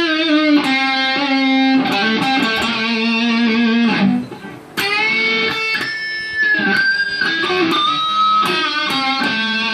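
Epiphone Sheraton II semi-hollow electric guitar played through a Vox VT20+ amp with light overdrive: notes left to ring long to show its sustain, some bent in pitch, with a brief break about four seconds in.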